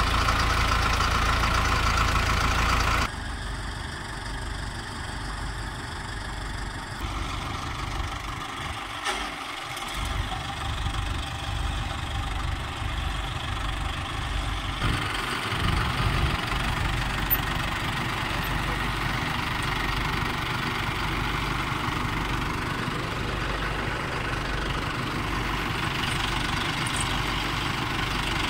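Diesel farm tractor engines idling and running steadily, the sound shifting abruptly about three, seven and fifteen seconds in.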